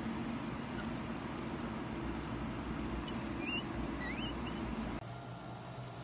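A newborn red panda cub's high squeaks, a few short rising ones, over a steady low room hum. The hum changes to a quieter room tone about five seconds in.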